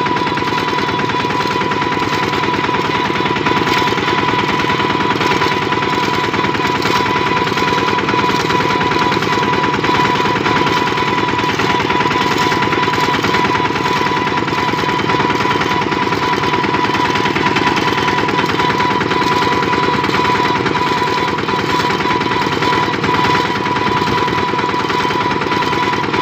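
Kubota RT-series single-cylinder diesel engine on a two-wheel walking tractor, running steadily at road speed while pulling a cart, with a fast, even chugging beat and a steady high whine running through it.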